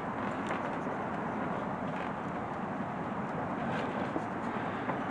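Steady background rushing noise with a few faint light clicks of parts being handled.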